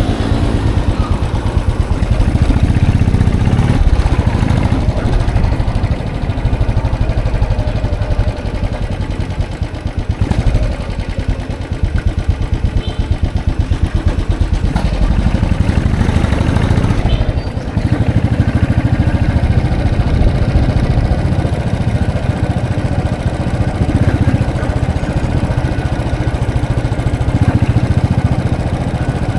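Royal Enfield Classic 500's single-cylinder engine running steadily while riding, with a dense low pulsing. The level dips briefly twice, about ten seconds in and again near eighteen seconds.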